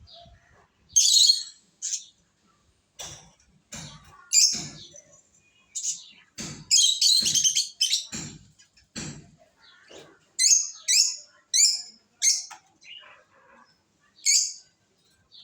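Lovebirds calling in short, shrill chirps with gaps between them, a longer burst of chatter in the middle and a quick run of four calls a few seconds later.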